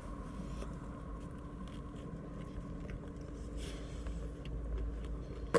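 Faint chewing and biting on a sandwich over a steady low hum inside a car.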